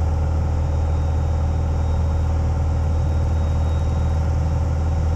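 Single-engine light aircraft's piston engine and propeller droning steadily in flight, heard inside the cockpit.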